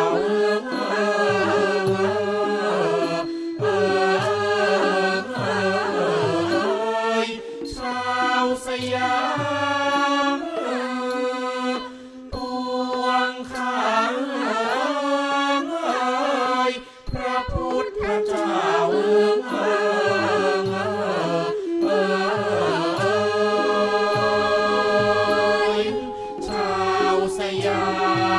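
Thai classical music accompanying the dance: a singer's long, wavering, melismatic vocal line over an instrumental ensemble, with brief pauses between phrases.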